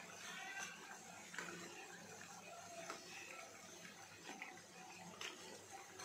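Bondas deep-frying in hot oil: a faint steady sizzle and crackle, with a few light clicks of a slotted steel spoon against the pan as they are turned.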